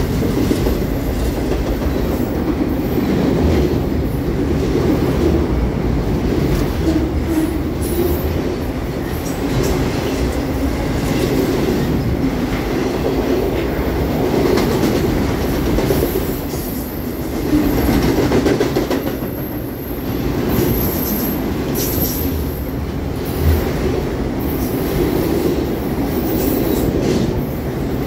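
Freight train of enclosed autorack cars rolling past at speed, with a steady rumble of steel wheels on the rails and clickety-clack over the rail joints. A faint high wheel squeal comes in briefly about two-thirds through.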